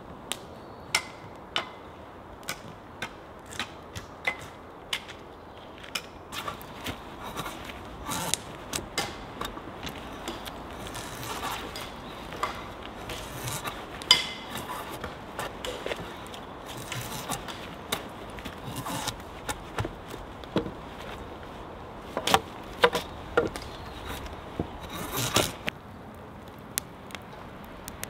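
Irregular wooden knocks, taps and scrapes from hand work on pole rails, with a cluster of louder knocks a few seconds before the end and a short scrape just after them.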